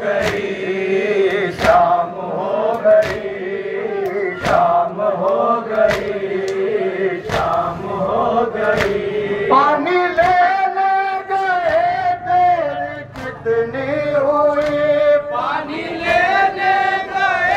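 Crowd of Shia mourners chanting a noha in unison, with sharp, synchronized chest-beating (matam) slaps about every one and a half seconds. About ten seconds in the slaps give way to long, held sung lines from the reciters and the crowd.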